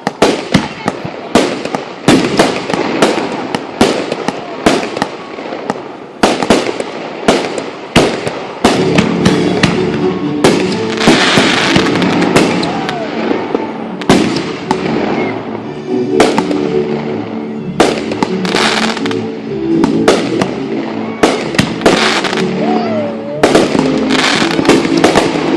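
Fireworks display: a rapid, irregular string of loud bangs and crackles. Music comes in about a third of the way through and plays under the bangs.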